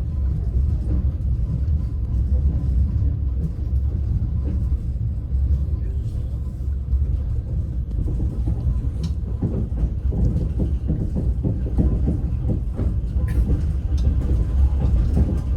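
Passenger train carriage running along the track, heard from inside: a steady low rumble with the rhythmic clatter of the wheels over the rails, which grows denser about halfway through, and a few sharp clicks.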